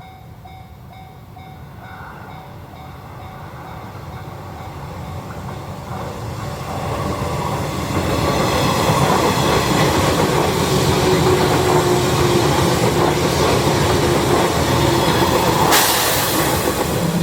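Level-crossing bell ringing in an even repeating pattern as the JR East 'Hana' joyful-train electric multiple unit approaches and passes over the crossing. The train noise grows steadily louder, and from about eight seconds in a loud, dense rush of wheels clattering on the rails covers the bell. A sudden loud rush of noise comes in near the end.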